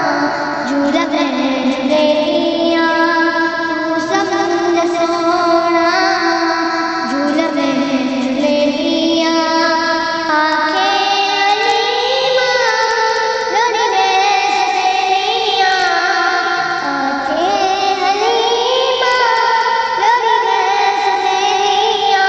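A high voice singing a naat in long, drawn-out notes that glide slowly from pitch to pitch, with no clear words.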